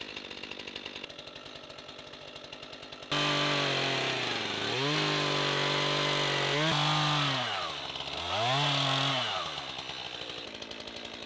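Stihl two-stroke chainsaw idling, then throttled up suddenly about three seconds in and cutting into a log. The engine note sags as the chain bites and climbs again twice, then falls back to idle near the end.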